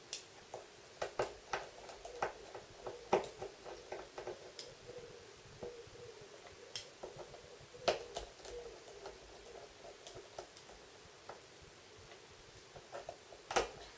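Small irregular clicks and ticks of a Phillips screwdriver working the tiny screws out of a Samsung Galaxy S4's plastic midframe, with metal tip and screws tapping on plastic.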